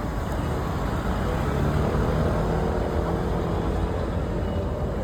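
Steady engine and road rumble of a moving road vehicle, with a faint hum rising slightly in the middle.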